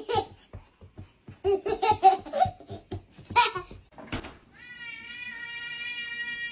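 A toddler giggling and laughing in short bursts, then a steady high-pitched tone that rises slightly at its onset and then holds.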